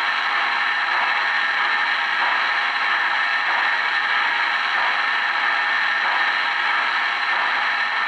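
Steady mechanical whir and hiss with light clatter from O-gauge model trains on a layout.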